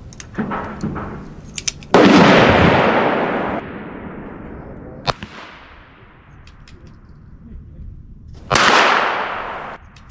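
Ruger Super Wrangler single-action .22 LR revolver fired twice, about six and a half seconds apart, each shot followed by a ringing tail of more than a second. A sharper single crack comes about five seconds in, with a few small clicks before the first shot.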